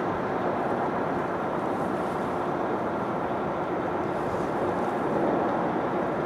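Steady rumble of distant rail and road traffic, with a faint steady hum, swelling slightly about five seconds in.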